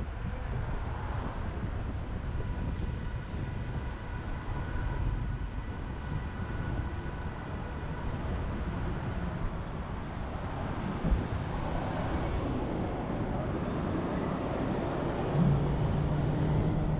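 Downtown street traffic: a steady rumble of passing vehicles, with a low engine hum coming in near the end.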